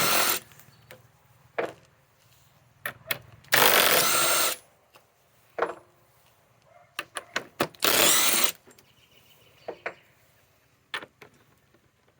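Masterforce Boost cordless impact driver run in three short bursts, backing screws out of wood, with light clicks and taps between bursts.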